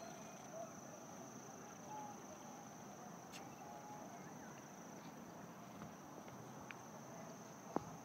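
A steady, high-pitched insect trill over faint background noise, with a few faint short chirps and a small click near the end.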